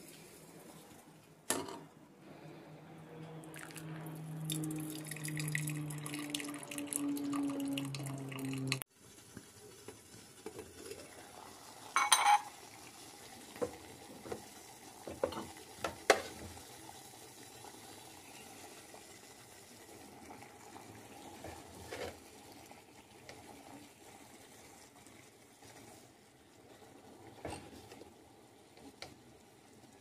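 Tap water running into an enamel kettle, with a low hum that falls slightly in pitch as it fills. It stops suddenly about nine seconds in. Then come a few sharp metal and glass clinks as the kettle and its lid are set on the gas stove.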